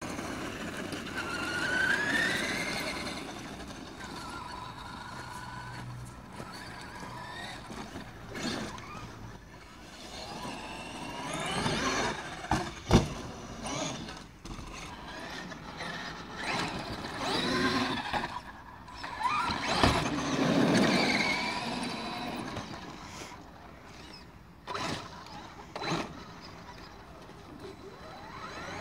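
Traxxas X-Maxx RC monster truck's brushless electric motor whining, rising and falling in pitch as the truck accelerates and slows again and again. Two sharp knocks from the truck striking the ground, about 13 and 20 seconds in, the first the loudest.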